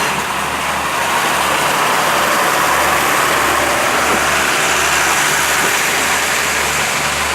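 A large engine idling steadily under a loud, even hiss.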